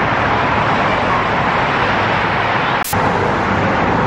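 Steady, loud vehicle and traffic noise, with one sharp click about three seconds in.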